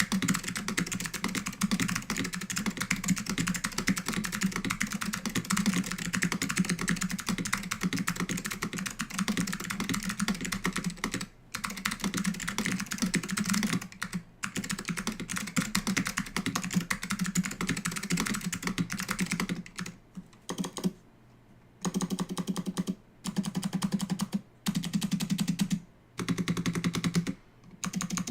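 Fast continuous typing on a mechanical keyboard with clicky SKCM Blue Alps switches and PBT keycaps from an Apple Extended Keyboard II, a dense run of key clicks. After about twenty seconds the typing breaks into shorter bursts with brief pauses between them.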